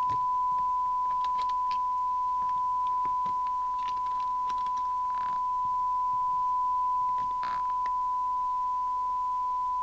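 Steady 1 kHz test tone from a CB radio's receiver, demodulating a signal generator's tone-modulated carrier on the bench, with a few faint clicks.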